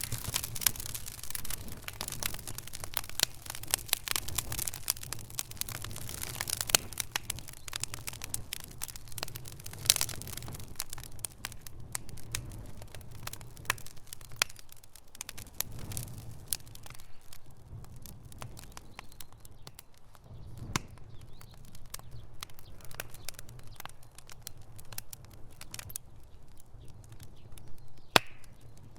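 Wood fire burning in a fireplace, crackling and popping over a low steady rumble of flame. The crackles come thick at first and thin out in the second half, with a few sharp loud pops.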